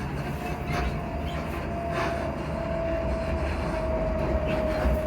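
Class 334 electric multiple unit's traction motor whine, one clear tone falling slowly in pitch as the train slows for its terminus. Underneath is a low running rumble with a few clicks of wheels over rail joints.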